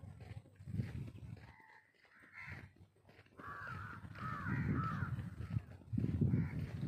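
Crows cawing: a quick run of about four caws about halfway through and more starting at the very end, over a low rumbling noise.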